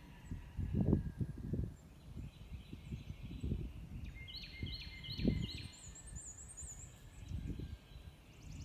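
Wind buffeting the microphone in several low rumbling gusts, the strongest about a second in and about halfway through. A songbird sings a short phrase of repeated notes in the middle, then a high trill.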